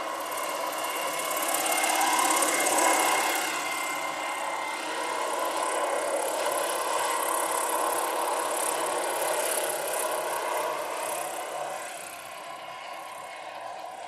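Large electric RC scale model helicopter (AH-1 Cobra, about 2.5 m rotor) in flight: a steady whine from the electric drive with the whoosh of the rotor blades. It is loudest about two to three seconds in and fades near the end as the helicopter moves away.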